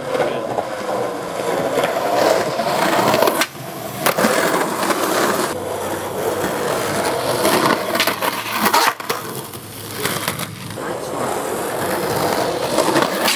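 Skateboard wheels rolling over rough concrete, a steady grinding rumble, with a few sharp clacks of the board hitting the ground.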